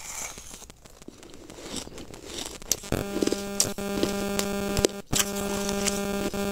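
Chewing a mouthful of crunchy frozen ice food: crackly crunches and sharp clicks. A steady hum comes in about three seconds in.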